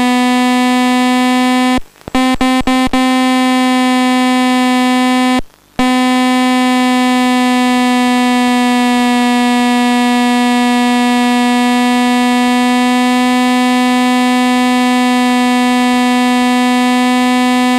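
A steady electronic buzzing tone, low and unchanging in pitch with a rich, reedy overtone series, from the FPV system's telemetry audio. It cuts out briefly about two seconds in, with a few clicks, and again about five and a half seconds in.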